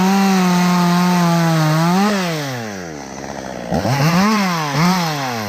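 Two-stroke chainsaw held at high revs for about two seconds, then throttled down to idle, then revved up sharply twice in quick succession near the end.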